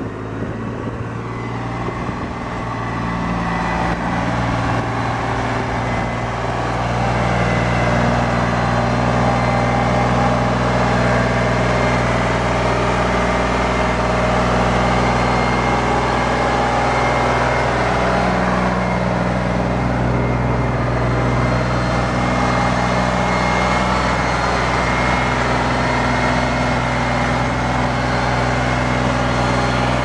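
Ditch Witch 4010's Deutz three-cylinder diesel engine running steadily, growing louder over the first several seconds and then holding an even level.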